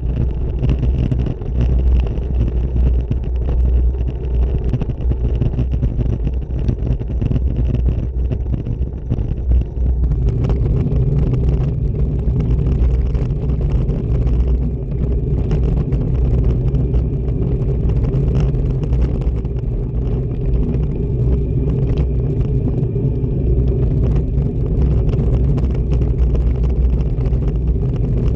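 Riding noise from a road bike moving along an asphalt lane: wind buffeting the bike-mounted camera's microphone and tyres rumbling on the road surface, a loud, steady low rumble that grows heavier about ten seconds in.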